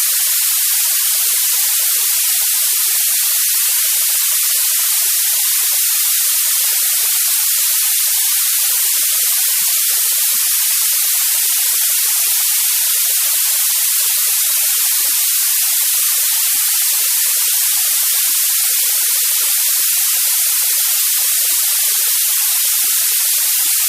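Steady white noise: an even, unchanging hiss, bright and treble-heavy, with almost nothing in the bass.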